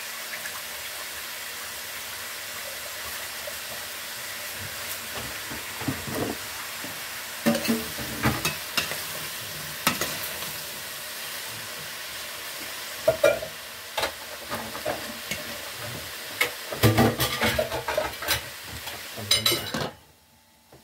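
Pork, broccoli and green beans sizzling in a stainless steel pot, with a spoon clanking and scraping against the pot as they are stirred from about six seconds in. Near the end a glass lid goes on and the sizzling drops away abruptly.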